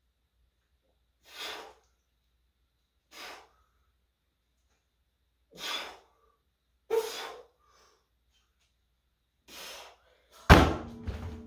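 Sharp, forceful breaths pushed out with each rep of an overhead press with an empty 135 lb strongman log, five of them one to two seconds apart. Near the end the log is dropped onto a tire: a loud crash followed by a ringing hum.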